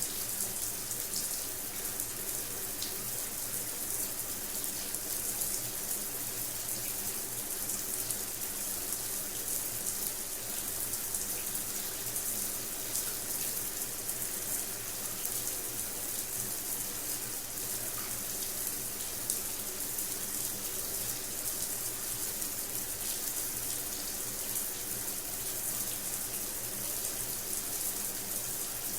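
Water pouring steadily from a rainfall shower head, an even hiss of spray.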